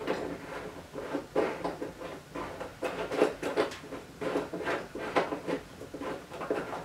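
Hands putting the plastic oil-fill cap and dipstick back into a Poulan Pro snowblower's engine, making an irregular string of small plastic clicks and scrapes.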